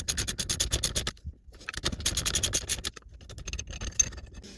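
Rapid metallic clicking and scraping in two main runs, then fainter, as steering-column parts are worked loose with hand tools.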